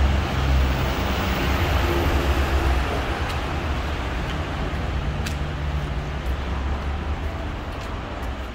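A vehicle in motion: a steady, heavy low rumble with a hiss of running noise and a couple of faint clicks.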